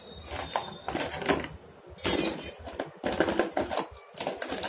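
Metal hand tools clinking and clattering against each other as they are rummaged through and set down, a run of irregular sharp knocks, loudest about two seconds in.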